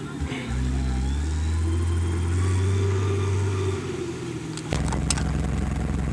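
Motor vehicle engine running with a steady low hum. It changes pitch about half a second in, eases off around four seconds, then settles at a new steady pitch after a clunk and a few clicks near the five-second mark.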